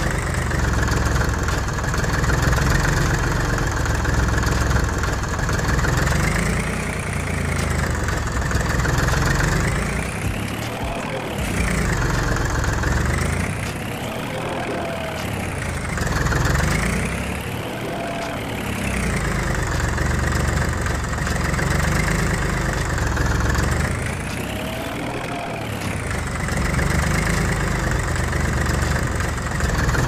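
Tractor engine running, steady at first, then rising and falling in pitch every few seconds.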